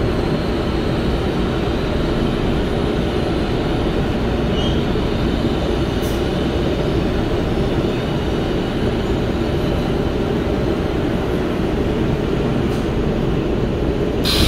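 Korail Line 4 subway train heard from inside the car: a steady rumble of wheels and running gear as it runs along a station platform.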